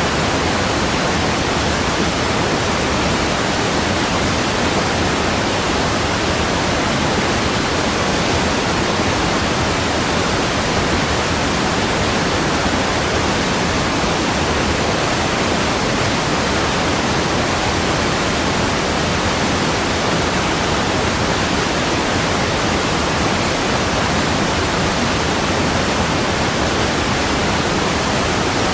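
Rushing water, like a waterfall: a steady, even hiss that does not change.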